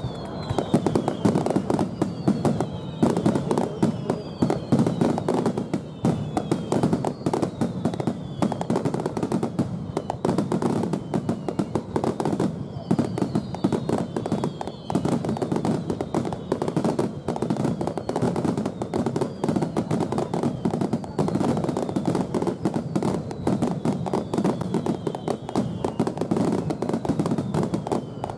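Dense finale barrage of aerial firework shells bursting in rapid succession, a continuous crackle of bangs with no let-up. Short falling whistle-like tones recur every second or two over the bangs.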